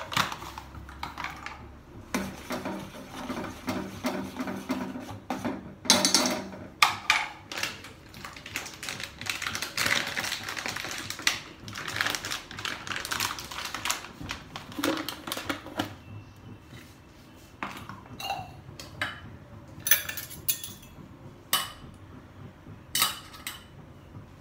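Food-prep handling sounds: a spoon clinking and tapping against steel bowls and jars, with a plastic packet crinkling in the middle stretch and sharp clinks of stirring and mixing near the end.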